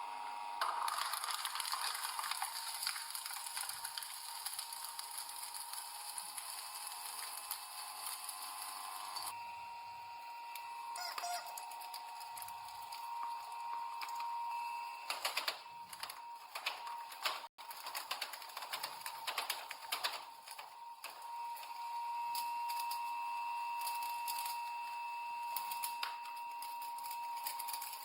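A crushing machine pressing objects, with a steady high machine whine under irregular clicking and crackling. The sound cuts out for an instant about two-thirds of the way through, then carries on with the same whine and crackle.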